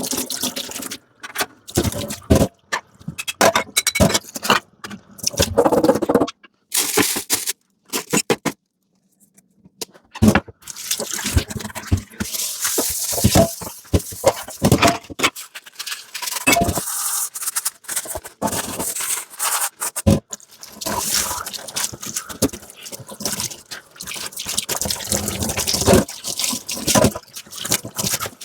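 Dishes being hand-washed at a kitchen sink: clinks and knocks of dishes and utensils mixed with splashing and spells of running water. There is a short silent gap about nine seconds in.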